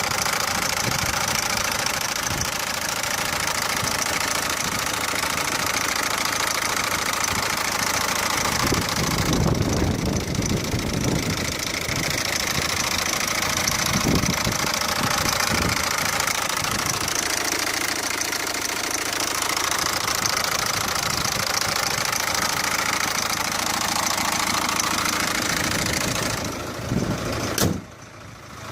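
Peugeot 407's 1.6 HDi diesel engine running, carrying the unexplained engine noise its owner sent in to be diagnosed. The sound drops away briefly near the end.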